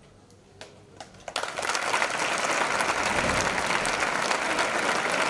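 A large crowd of spectators suddenly breaks into loud, sustained applause about a second and a half in. Before that it is fairly quiet, with a few sharp clicks.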